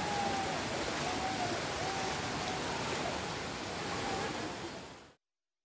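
Fast-flowing floodwater of a swollen river rushing as a dense, steady noise, with a few faint wavering high tones over it. It fades out and cuts to silence about five seconds in.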